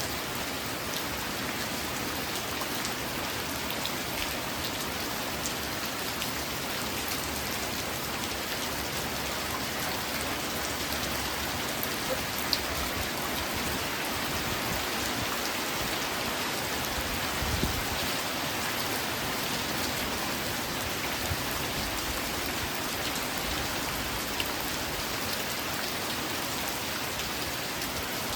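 Steady rain falling, an even hiss with a few sharper single drop taps scattered through it.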